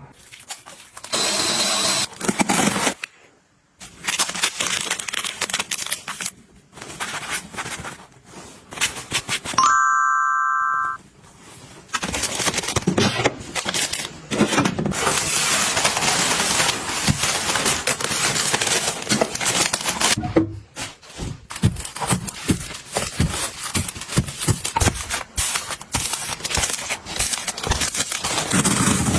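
Clicks, rustling and scraping of items being handled and arranged. About ten seconds in, a steady electronic chime sounds for just over a second and cuts off abruptly.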